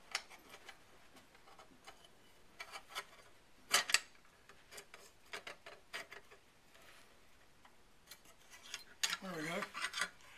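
Small metal clicks and clacks of a Browning BAR rifle's bolt being turned and worked out of the receiver by hand, with a sharper clack about four seconds in.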